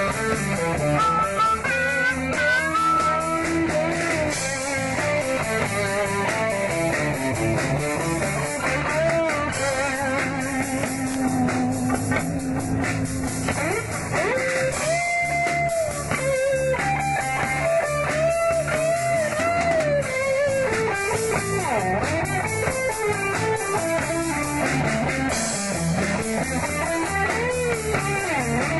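Live blues-rock band playing an instrumental passage: electric guitar lead with bent, sliding notes over bass guitar and drum kit.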